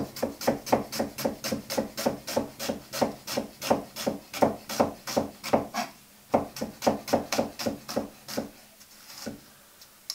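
Chef's knife slicing an onion finely on a wooden chopping board: each cut ends in a knock of the blade on the board, in an even run of about five a second. The run breaks off about six seconds in, starts again, and slows to a few last cuts near the end.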